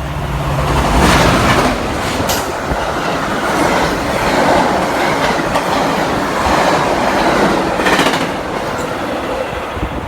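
Metra commuter train passing close at high speed: a low engine hum fades in the first second, followed by loud rushing noise of the cars with the clickety-clack of wheels over rail joints.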